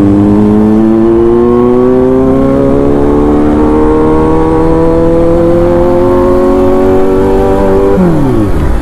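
Kawasaki Z900's inline-four engine pulling hard through one gear, its pitch rising steadily as the bike gathers speed. About eight seconds in, the throttle is shut and the pitch drops sharply.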